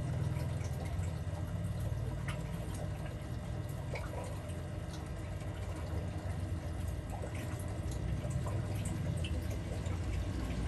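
Aquarium water bubbling and trickling from the tank's filter and air line, with scattered small drip-like ticks over a steady low hum.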